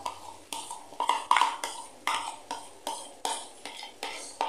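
A plastic bowl being scraped and knocked against the rim of a non-stick pan as coarsely ground boiled peas are emptied into the masala: about ten irregular knocks and scrapes.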